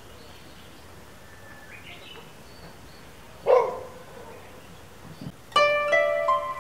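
Outdoor garden ambience with a few faint chirps, broken about halfway by one loud short animal call. Near the end, koto background music begins with ringing plucked notes.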